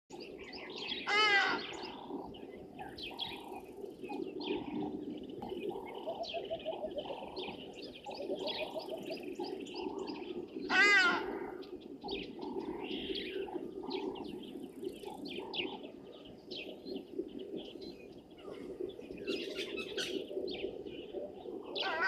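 Dawn bird chorus in the bush: many short calls and chirps over a steady low background. Two loud, drawn-out harmonic calls stand out, about a second in and again about eleven seconds in; these are taken to be grey go-away birds.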